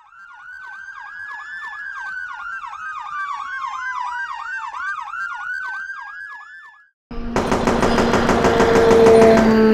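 Emergency siren sound effect: a fast yelp of rising-and-falling tones, about four a second, under a slower wail that rises and then falls. It cuts off about seven seconds in, and after a short gap a louder, dense sound with rapid regular clicks and held low tones begins.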